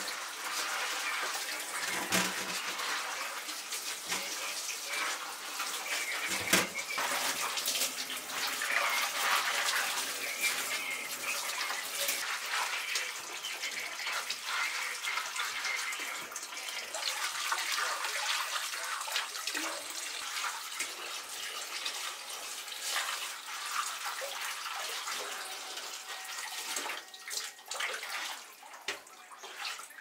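Tap water running into a stainless-steel kitchen sink as vegetables are rinsed, with a couple of knocks as vegetables are set into a metal mesh colander. The water eases off in the last few seconds.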